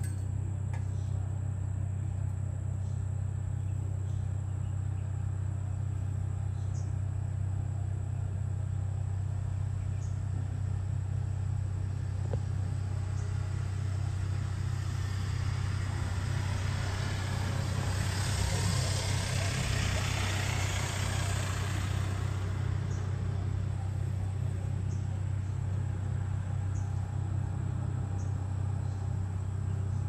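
A steady low rumble with scattered faint ticks, and about halfway through a broad rushing noise that builds over a few seconds and fades again, as a passing vehicle or a gust would.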